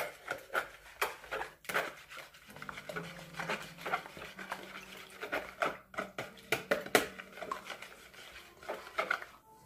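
Wire whisk beating a sweetened egg mixture in a plastic mixing bowl: a run of irregular clicking, rattling strokes as the sugar is whisked in to dissolve.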